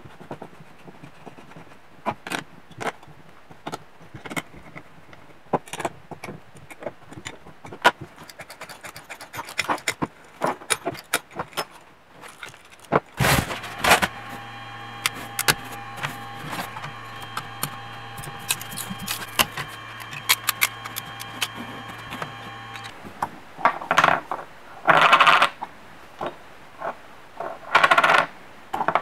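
Small metal parts clicking and tapping as screws are fitted into a machined aluminium block, then a 3D printer's stepper motors running with a steady whine and low hum for about ten seconds, stopping abruptly; near the end come short scraping sounds as the printed plastic parts are handled.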